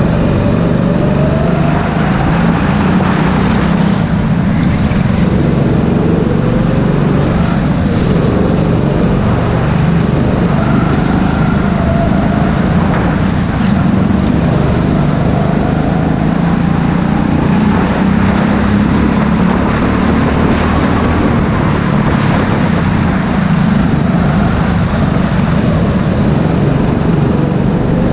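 Go-kart engine running hard, heard from on board the kart, its pitch rising and falling as the throttle opens and closes through the corners.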